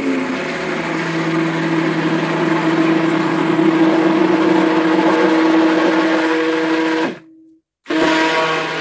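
Hand-held stick blender running in a stainless steel bowl, a steady motor hum over churning liquid as it blends lye solution into the soap oils. The motor cuts off about seven seconds in and starts again a moment later.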